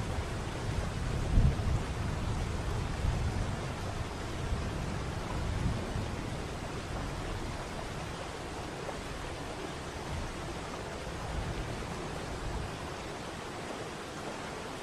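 Waterfall: water falling and rushing in a steady, even hiss. Low rumbling bumps come through in the first half, the loudest about one and a half seconds in.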